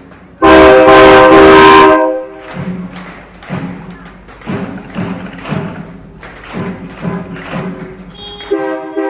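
Train horns fitted to a car blast one loud chord of several steady tones for about a second and a half, then music with a steady beat plays; near the end another, quieter horn chord starts.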